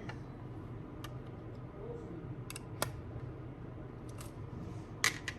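A few small, sharp clicks and taps from the parts and tools of an iPhone being handled during repair, the sharpest near the middle and two close together near the end, over a faint steady low hum.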